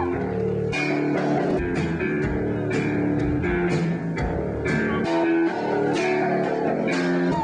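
A rock band playing live: electric guitar and bass guitar over a steady drum beat with cymbal hits about twice a second.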